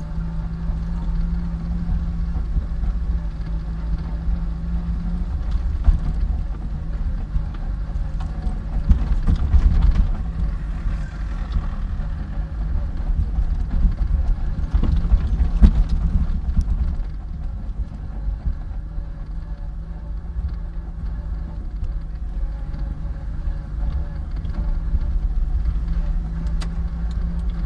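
A car driving slowly over an unpaved dirt surface: a steady low engine hum with continuous rumble, a little louder for a few seconds around the middle.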